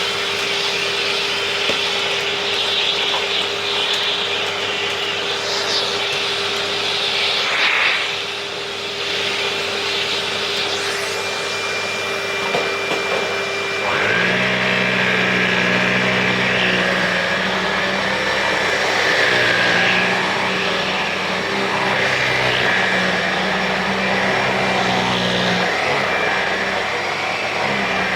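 Kärcher CV36/2 upright vacuum cleaner running steadily while picking up scattered debris. About halfway through its sound changes abruptly to a deeper hum with a higher whine over it.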